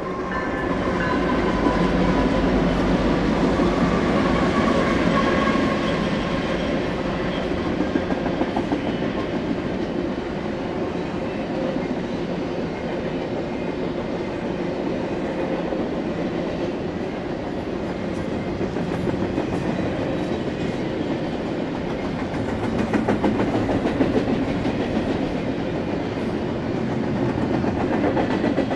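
BNSF double-stack intermodal freight train passing close by. A deep diesel-locomotive rumble dominates the first few seconds, then gives way to the steady rolling rumble and clickety-clack of loaded container well cars on the rail joints.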